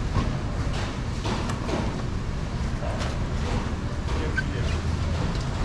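Busy street-stall background: a steady low rumble like passing traffic, with faint distant voices and a few light clicks.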